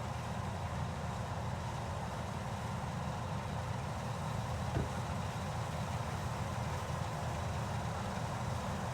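Harvest machinery running with a steady engine drone, deep and even throughout. One short click about five seconds in.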